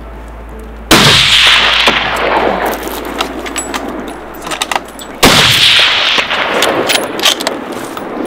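Two hunting rifle shots about four seconds apart, each sharp crack followed by a long echo rolling away and fading over a few seconds.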